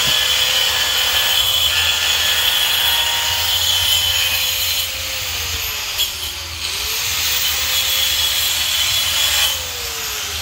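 Handheld electric power tool running at speed with a high hissing whine. Its pitch sags about five seconds in, climbs back up, then winds down near the end.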